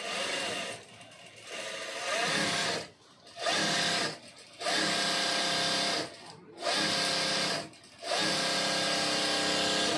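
Juki DDL-8100e direct-drive industrial lockstitch sewing machine stitching through fabric in six short runs with brief pauses between them. The motor's pitch rises as each run gets up to speed, then holds steady.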